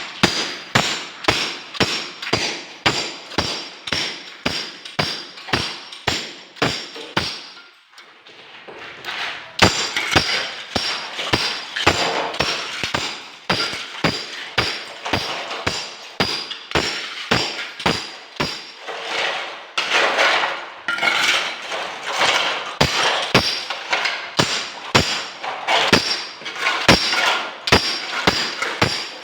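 Steady hammering, about two strikes a second, each hit with a bright metallic ring, stopping for a moment about eight seconds in and then carrying on.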